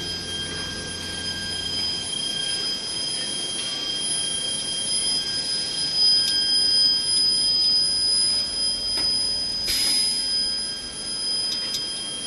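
Pipe welding machine running, steel strip passing through its forming rollers: a steady machine noise with several high-pitched tones held throughout. A short hiss about ten seconds in.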